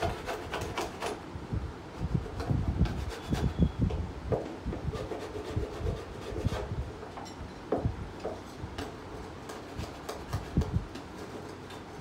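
Irregular knocks, taps and rubbing from hand work on the workshop floor, with scattered low thuds.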